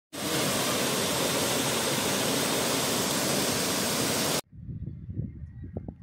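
Waterfall pouring into its plunge pool: a loud, steady rush of falling water that cuts off suddenly about four seconds in, giving way to fainter, uneven low rumbling.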